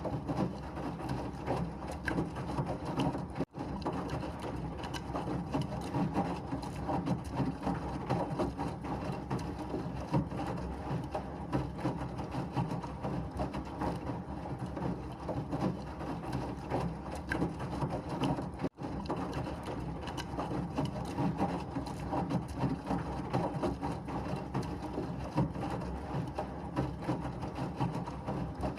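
Washing machine running steadily, a continuous churning hum with a rattling clatter, broken by two very brief drop-outs.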